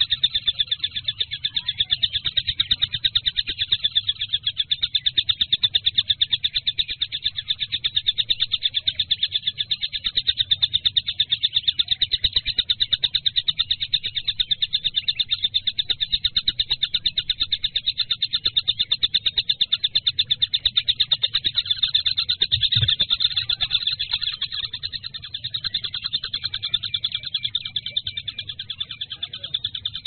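Kingfisher (tengkek) calling in a long, rapid trill of evenly repeated high notes that runs on without a break.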